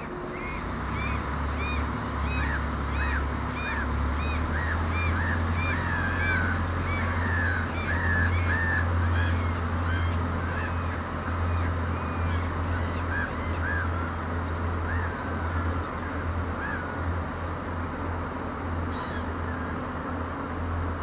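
Irish Rail 29000 class diesel multiple unit pulling away from a station, its engines giving a steady low drone. Above it runs a string of short, high rising-and-falling chirps, about two a second, which fade out a few seconds before the end.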